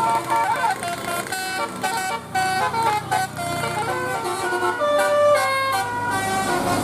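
Bus telolet horn of the Basuri type, a multi-tone musical air horn, playing a quick melody of short stepped notes, several per second.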